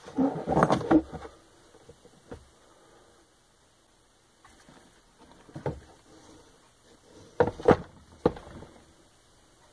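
A few short knocks and thumps as a heavy electric motor is handled and set down onto a bathroom scale. The loudest come in a quick cluster about three-quarters of the way through.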